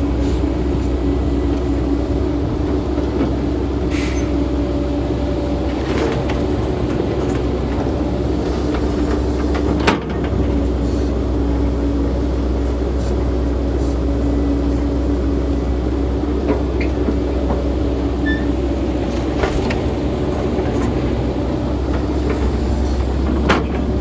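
Excavator's diesel engine running steadily with a constant drone, with a few sharp metallic clanks spread through, the loudest about ten seconds in.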